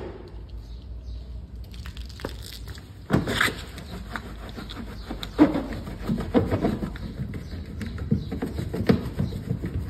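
Scrubbing of a foam-covered alloy wheel and tyre: wet, irregular rubbing and swishing strokes that start about three seconds in, over a low steady rumble.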